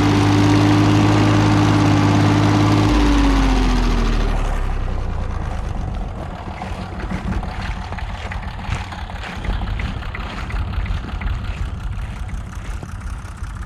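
Tractor engine running close by as it pulls a plough. About three seconds in its note drops in pitch, and it fades as the tractor moves away.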